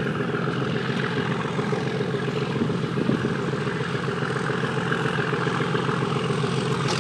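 Diesel locomotive engine running at a steady, unchanging note, the train out of sight behind the lineside fence.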